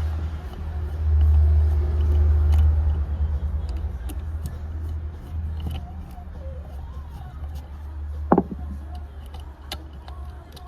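Honda Civic EK4's B16 engine running, its low rumble swelling about a second in and easing back after a few seconds. A short sharp sound comes about eight seconds in.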